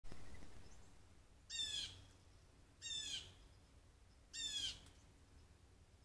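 Blue jay giving three harsh calls about a second and a half apart, each short and slightly falling in pitch. A click at the very start.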